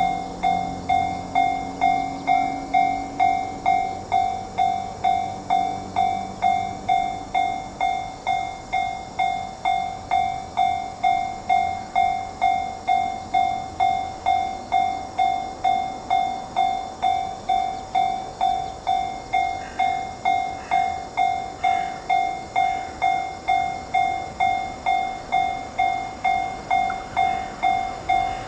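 Japanese railroad level-crossing warning bell ringing in a steady, even rhythm of about two strikes a second. It is the alarm that signals a train is approaching and the barriers are down.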